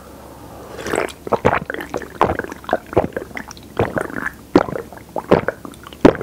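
A person gulping a canned drink down in big swallows, about two a second, close to a lapel microphone.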